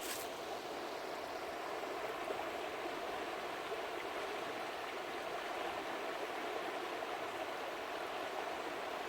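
Steady rushing of a river, the Ausable River's water flowing fast in spring.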